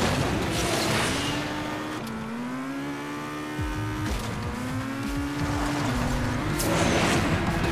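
Racing-game engine sound of a Mitsubishi Lancer Evolution accelerating from the start: the engine note climbs, then drops back at each gear change, roughly every two seconds. A rush of tyre and boost noise comes at the start and again near the end.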